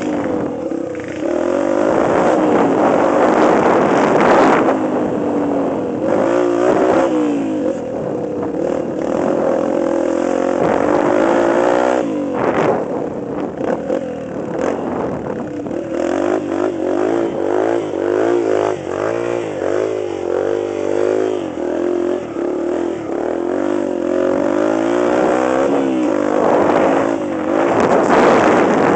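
Off-road vehicle engine being ridden hard, revving up and easing off over and over so its pitch keeps rising and falling. A run of knocks and rattles comes through in the middle.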